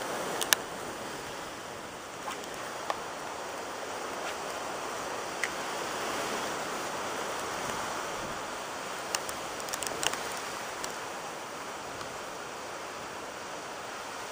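Hurricane wind and heavy rain making a steady rushing hiss, broken by a few sharp taps and clicks, the loudest about half a second in and a cluster near ten seconds.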